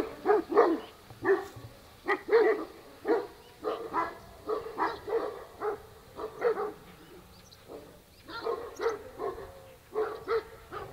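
A pack of farm guard dogs barking over and over, several voices overlapping, with a short lull a little past halfway. It is the alarm call of one dog standing guard taken up by the whole pack.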